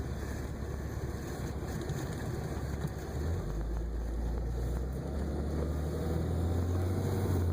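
Diesel engine fitted with an HE351VE turbocharger running under way, a steady low drone. Its pitch drops a little a few seconds in, then climbs again as it gets gradually louder.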